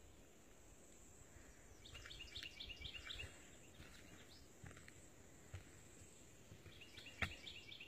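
Quiet swamp woodland where a bird calls in two quick runs of short, high chirps, about two seconds in and again near the end. One sharp knock comes shortly before the end.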